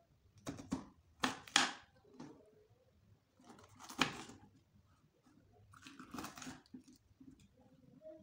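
Kitchen knife cutting through a long green capsicum on a plastic cutting board: a few short, crisp crunching cuts, the loudest about a second and a half in, with more near four and six seconds in.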